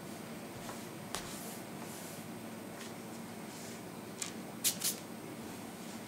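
Fingers rubbing a pinch of ground cinnamon over a tray of apple slices: two short, dry rustles close together near the end, after a couple of light clicks, over a steady low hum.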